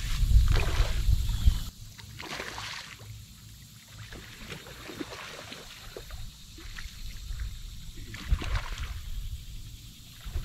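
Water splashing and sloshing at the bank as a hooked common carp is played in, in scattered irregular strokes with a stronger splash about eight seconds in. A low rumble, wind on the microphone, fills the first second and a half and cuts off suddenly.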